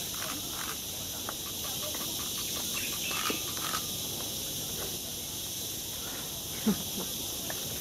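Outdoor ambience: a steady high hiss with many short, faint chirps scattered through it, and one brief low sound near the end.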